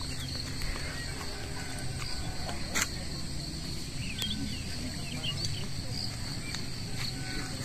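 Steady high-pitched insect drone, typical of crickets, with a few short chirps near the middle and a single sharp click about three seconds in.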